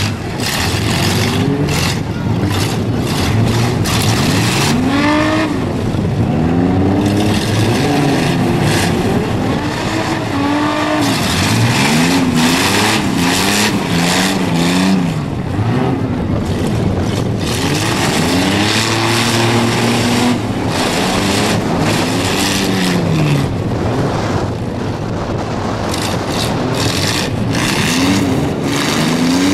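Several demolition-derby van engines revving up and falling back over and over as the vans reverse and charge, with frequent sharp bangs and crunches of the vans hitting each other.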